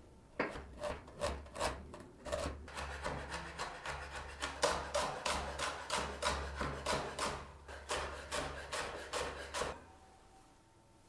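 Repeated rasping strokes of hand food preparation, about three a second, stopping shortly before the end.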